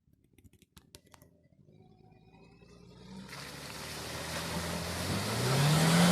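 A car engine fades in from near silence, growing steadily louder and rising slightly in pitch as it revs up, with a few faint clicks before it.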